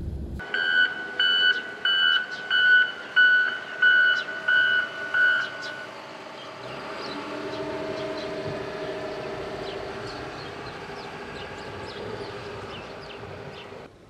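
A vehicle's back-up alarm beeping about eight times, roughly one and a half beeps a second, then stopping; after it an engine runs steadily.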